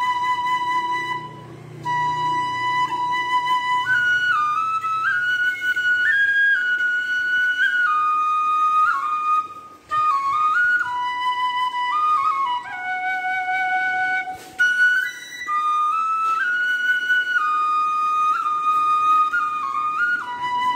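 Background music: a solo flute playing a slow melody of held notes that step up and down.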